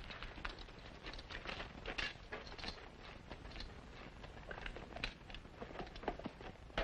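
Footsteps and horses' hooves shuffling on packed dirt: irregular soft scuffs and light knocks, with no steady rhythm.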